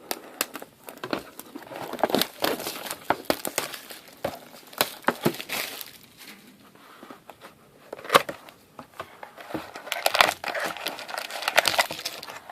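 Wrapping crinkling and tearing as a box of hockey trading cards and its packs are opened by hand: irregular sharp crackles, busiest in two stretches early and late.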